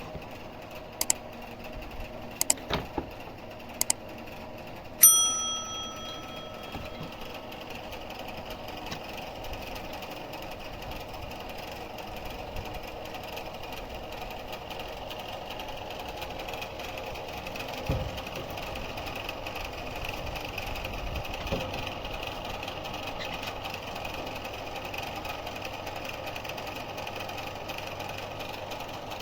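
Sawmill machinery running steadily. There are a few sharp clicks in the first seconds and a single ringing metallic clang about five seconds in, then two dull knocks later on.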